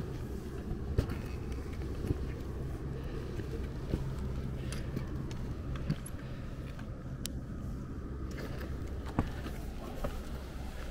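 Steady low rumble of wind buffeting the camera microphone, with a few sharp knocks of footsteps and handling on rock.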